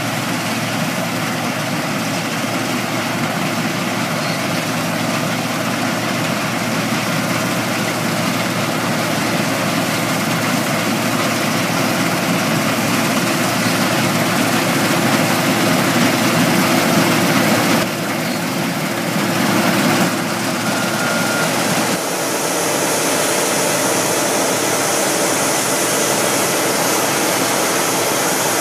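New Holland 3550 AL combine harvester's six-cylinder Iveco/Fiat diesel engine and threshing gear running steadily while cutting barley, growing louder as it approaches. Later the combine is unloading grain through its auger into a cart, a steady running sound with a high hiss.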